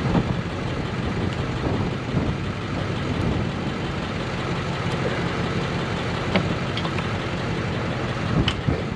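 An engine idling steadily nearby, with a few light clicks of hand tools in the engine bay in the last few seconds.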